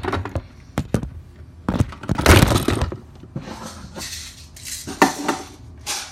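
Knocks, clatter and rustling right at a phone camera lying face-down after its mount fell over, with a loud scraping rustle about two seconds in.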